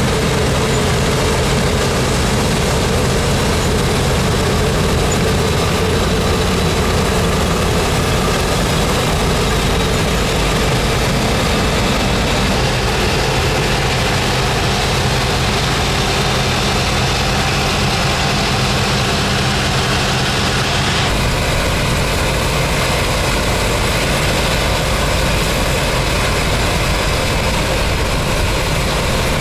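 DON-1500B combine harvester's diesel engine and threshing machinery running steadily while cutting wheat. The sound changes abruptly about two-thirds of the way through.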